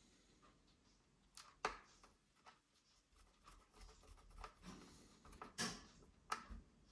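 Faint scattered clicks and scratchy scrapes of a small screwdriver turning screws into a laptop's plastic base cover, more frequent in the second half.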